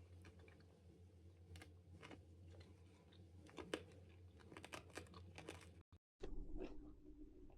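Faint mouth clicks and crunching as a person eats a hard-boiled sweet, over a low room hum. The sound cuts out briefly about six seconds in.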